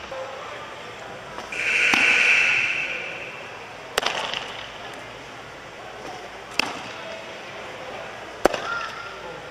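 Softball smacking into leather gloves: sharp pops a couple of seconds apart as a catcher receives and throws from her knees. About two seconds in, a louder hissing noise swells and fades.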